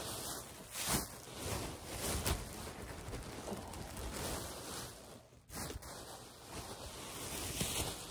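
Clothes being handled, giving a soft rustling with a few faint knocks.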